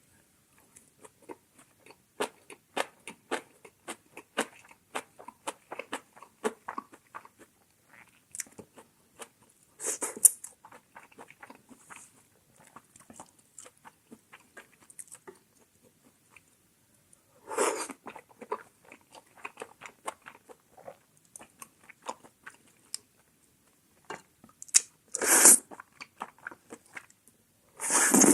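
Close-miked chewing and crunching of food, with many sharp, crisp crunches, particularly in the first several seconds. A few louder, brief rushes of noise break in about ten seconds in, again around seventeen and twenty-five seconds, and at the end.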